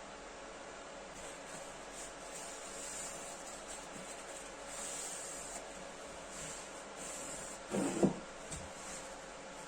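Faint rubbing and handling of wooden pieces over a steady hiss, with one sharp wooden knock about eight seconds in.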